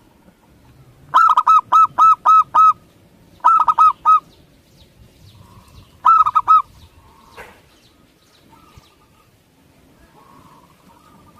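Zebra dove (perkutut) calling: three bursts of rapid, evenly spaced staccato cooing notes, the first of about seven notes, the next two of about four each.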